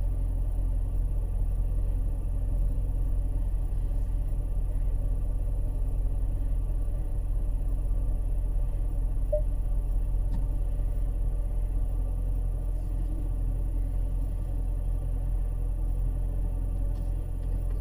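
Dodge Challenger Scat Pack's 392 Hemi V8 and tyre noise heard from inside the cabin: a steady low drone while cruising at an even speed.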